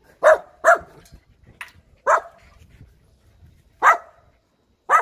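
Puppies barking in short, sharp yaps: two quick ones at the start, another about two seconds in, one near four seconds and one more at the end.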